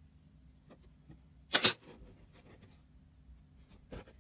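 Purple slime with a crumbly coating being scooped and pressed, giving one loud, brief crackling crunch about a second and a half in. A few faint clicks and pops come before it, and a smaller one follows near the end.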